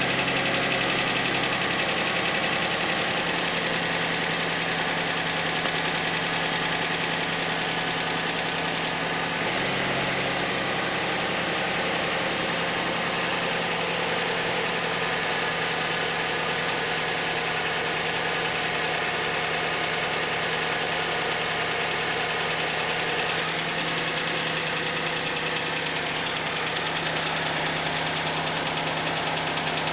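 Suzuki Vitara engine idling cold with a fast, even knock. About nine seconds in the idle settles a little lower and the knock grows fainter, though the engine keeps running.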